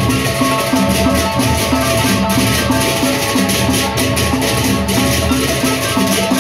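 Sasak gendang beleq gamelan playing: rows of small bronze kettle gongs struck with mallets in fast repeating patterns, over a steady pulse of drums and gongs and a constant shimmer of cymbals.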